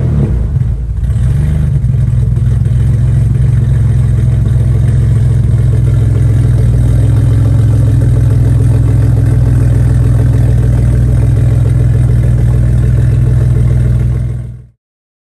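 BMW E28 5 Series engine heard close at its tailpipe, catching just as it fires and then idling steadily. It cuts off abruptly near the end.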